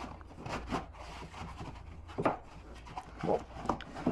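Paper towel roll being fitted on a wooden dowel holder and the paper fed through by hand: paper rubbing and rustling with several short wooden knocks, over a low steady hum.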